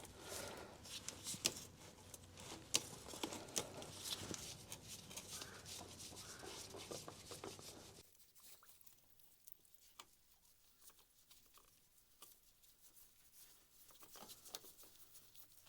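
Faint irregular clicks, taps and rustling from work by hand, thinning out about halfway through to near silence with only a few scattered clicks.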